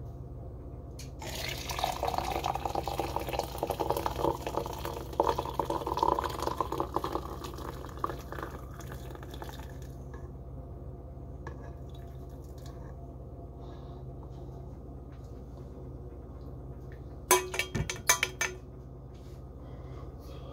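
Dark tea poured from a pot through a wire-mesh strainer into a glass mason jar, a steady splashing pour for about eight seconds as the jar fills. Near the end come a few sharp clinks and knocks as the metal strainer is lifted off the jar's rim, over a steady low hum.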